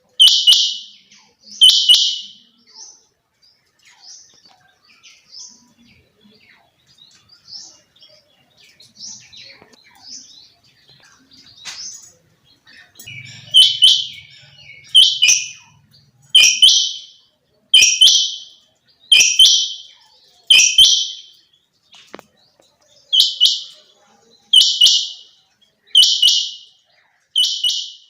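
Female quail calling, a short high-pitched call repeated about every one and a half seconds. The calls are faint and scattered for about ten seconds, then come back loud and regular from about halfway through.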